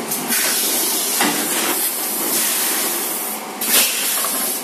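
Compressed air hissing from a two-cavity semi-automatic PET bottle blowing machine for a few seconds, then a short, sharper blast of air near the end.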